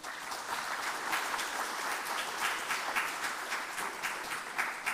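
Audience applauding, starting suddenly and holding steady as a dense patter of many hands clapping.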